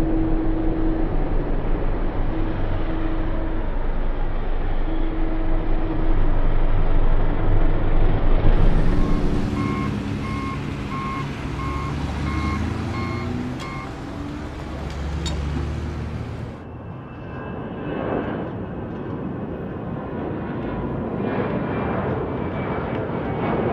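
Factory and airfield noise in several cut-together pieces: a steady machinery rumble, then a vehicle's reversing alarm beeping about twice a second for a few seconds, then an Airbus A380's jet engines running.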